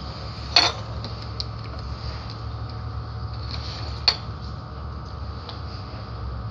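Steady low room hum with two sharp clicks, one about half a second in and a second near four seconds, and a few fainter ticks between.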